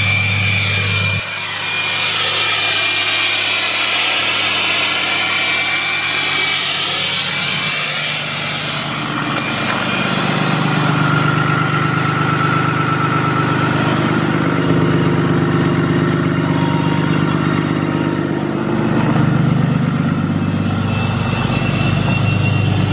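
Cummins turbo-diesel pickup engine idling steadily just after a cold start in below-zero temperatures, with the exhaust steaming.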